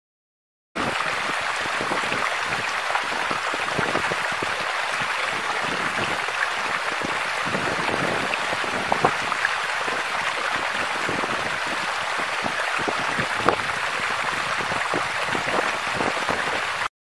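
Steady trickling of running water, full of small crackles and drips, starting and stopping abruptly.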